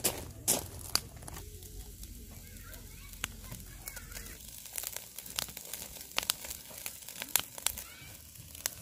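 Irregular crinkling and rustling, broken by scattered sharp clicks.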